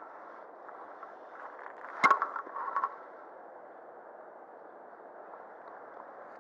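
A short clatter of sharp knocks and rattles about two seconds in, lasting under a second, over a steady background hiss.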